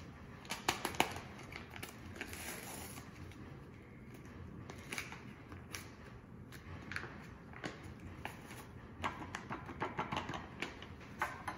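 Dry seasoning-mix packets being handled, torn open and shaken out into a glass measuring cup: scattered crinkling and rustling with short light clicks.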